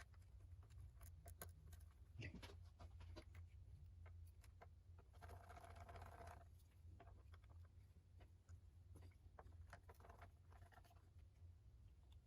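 Near silence: faint clicks and light handling noises of small parts being fitted on an outboard motor, with a brief scraping rustle about five seconds in, over a steady low hum.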